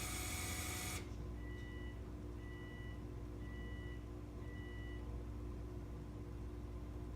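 Four short electronic beeps, evenly spaced about a second apart, over a low steady hum. A hissing noise cuts off suddenly about a second in, just before the beeps begin.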